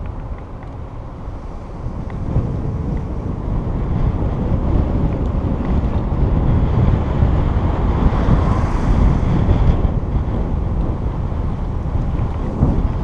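Wind buffeting the microphone of a camera in motion, a dense low rumble with no speech. It grows louder from about two seconds in, is strongest in the middle, and eases slightly near the end.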